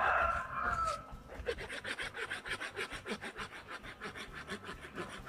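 Hand saw cutting through a tamarind branch with quick, even back-and-forth rasping strokes, about five a second. A short animal call is loudest in the first second, before the sawing settles in.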